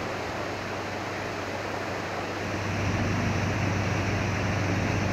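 Water churning and rushing below a river lock gate, with a steady low mechanical hum that grows louder about three seconds in.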